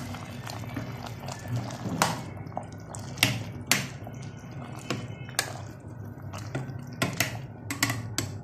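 Carrots in sugar syrup bubbling in a steel saucepan while a steel spoon stirs them, with sharp clinks and taps of the spoon against the pan scattered throughout, several of them louder.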